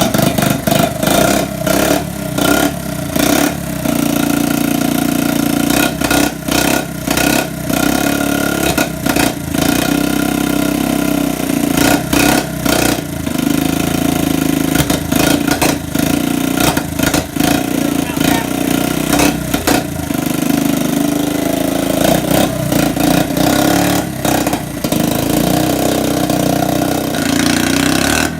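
1984 Honda ATC70's small single-cylinder four-stroke engine running at a high idle, just started after sitting eight years. Its steady note dips briefly again and again.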